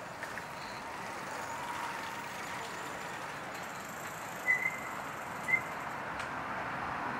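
Urban street ambience with a steady wash of traffic noise. Past the middle, two short high chirps sound about a second apart.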